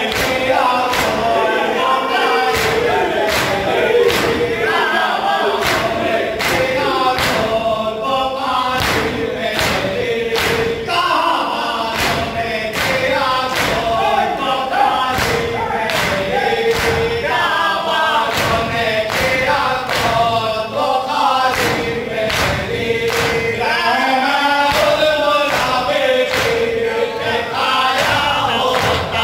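A crowd of men chanting an Urdu noha in unison, a lament for Imam Husain, over a steady beat of open-handed chest-beating (matam) slaps.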